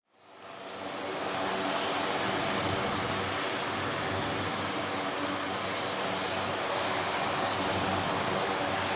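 Turbine helicopter's engine and rotor running steadily, with a thin high whine on top; the sound fades in over the first second.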